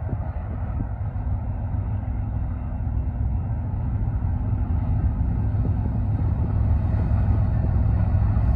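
Union Pacific diesel locomotives leading a double-stack freight train approaching, their engines a low steady rumble growing gradually louder.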